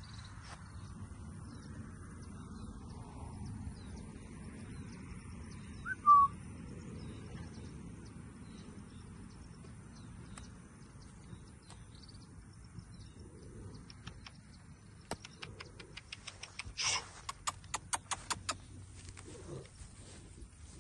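Birds calling in open pasture: one loud, short chirp about six seconds in, and a fast run of sharp chips, about four a second, in the last few seconds, over a steady low rumble.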